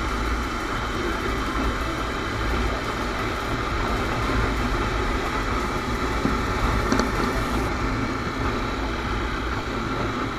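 Honda CBR250R motorcycle riding steadily at road speed: a constant rush of wind and road noise on the microphone, with the single-cylinder engine running underneath.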